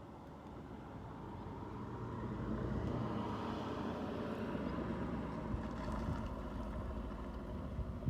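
Wind buffeting the microphone: a low rushing noise that builds about two seconds in and stays strong.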